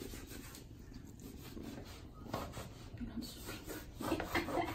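Faint rubbing and rustling of paper being handled on a floor, with a few short scuffs from about two seconds in.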